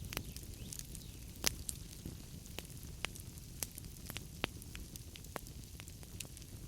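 Wood fire burning in a fireplace: a low steady rumble of flames with scattered sharp pops and crackles of burning logs, the loudest about a second and a half in.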